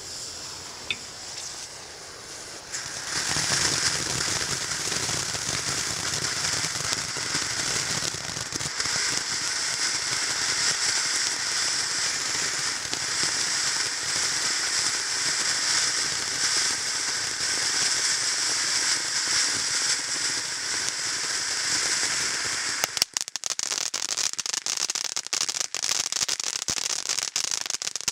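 Sky Scraper ground fountain firework: the lit fuse hisses softly, then about three seconds in the fountain ignites and sprays sparks with a loud, steady hiss. About five seconds before the end it changes to a dense, rapid crackling from its crackling stars.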